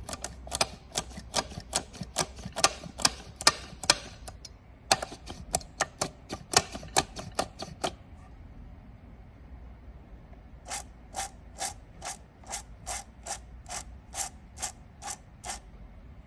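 Abnormal clutch noise from a Subaru BRZ: a run of sharp, repeated clicks about two to three a second, a short pause, then a second run of softer, evenly spaced clicks.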